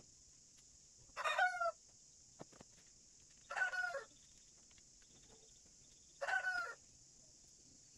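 A chicken calling three times, each call short with a slight downward bend, about two and a half seconds apart.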